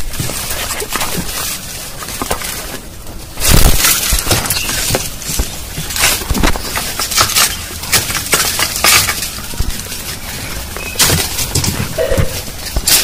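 Leaves and twigs of a citrus tree rustling and cracking as a bamboo pole is pushed and knocked through the branches. It is a run of sharp crackles and knocks, loudest about three and a half seconds in.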